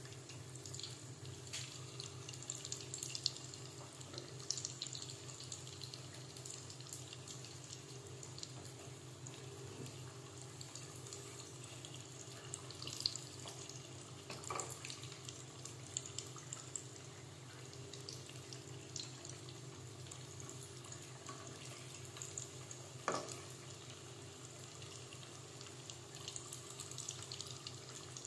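Hot oil sizzling and bubbling steadily as spring-roll-wrapped glutinous rice rolls (rice turon) deep-fry in a pot, with scattered fine crackles. A wooden spatula knocks against the pot a couple of times, over a steady low hum.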